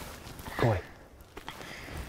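A man's voice exclaims "Boy" once, its pitch falling; otherwise only faint outdoor background noise.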